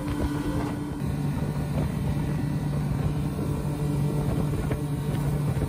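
Yamaha 200 outboard motor running steadily at cruising speed, with wind and rushing water over the hull. The engine's note shifts to a lower pitch about a second in and then holds steady.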